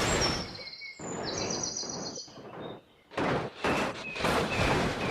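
Washing sounds as a muddy plastic toy train is cleaned. The noise comes in stretches that start and stop, with a few short high chirps over it.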